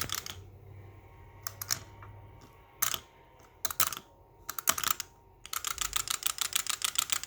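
Plastic wind-up pumpkin toy being handled, with scattered sharp clicks and knocks, then its clockwork mechanism clicking in a fast, even run of about eight clicks a second from about five and a half seconds in.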